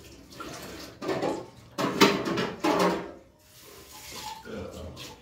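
Wet eating sounds of rice and curry being mixed and eaten by hand, in several irregular short bursts over the first three seconds, then quieter.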